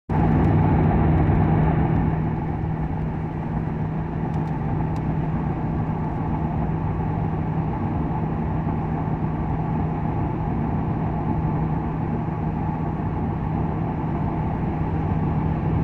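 Steady driving noise inside a 2001 Ford Crown Victoria cruising uphill: the 4.6-litre V8 running evenly with a steady low hum, over tyre and road noise. It is a little louder for the first two seconds.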